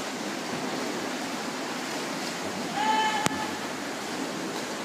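Freestyle swimmers kicking and splashing in a reverberant indoor pool: a steady wash of water noise. About three seconds in, a short high-pitched call and then a single sharp click.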